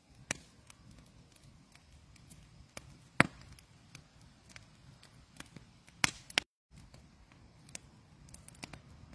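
Faint background hiss broken by a few sharp taps and clicks, the loudest about three seconds in and another pair around six seconds, with a brief cut to total silence just after them.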